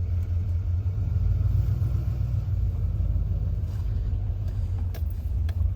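Truck engine running with a steady low rumble, growing a little stronger for a couple of seconds partway through.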